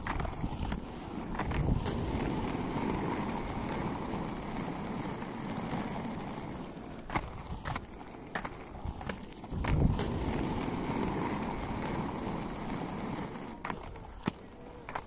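Wheels rolling over a rough, patchy paved road: a steady rolling noise with scattered clicks and rattles, and gusts of wind on the microphone about a second and a half in and again near ten seconds.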